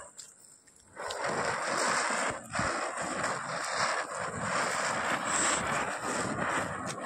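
A ground firework spraying sparks, with a steady hissing crackle that is faint at first and comes in strongly about a second in.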